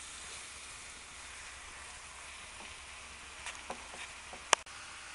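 Spice-coated diced chicken sizzling gently in oil in a wok: a steady, quiet hiss, with a few light taps of a wooden spoon being stirred and one sharp click about four and a half seconds in.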